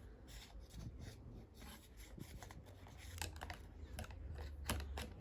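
Scissors snipping paper with faint rustling. A few short, sharp snips come about three seconds in and twice more near the end.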